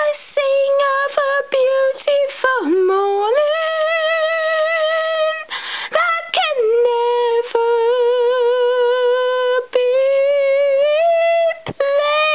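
A woman singing unaccompanied in long held notes with a wavering vibrato, sliding down and back up in pitch, with short breaths between phrases.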